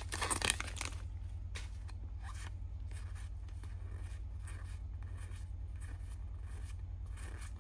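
A foil booster pack being opened and its trading cards handled: a short crinkle of the wrapper in the first second, then quiet light rustles and slides as the cards are flipped through.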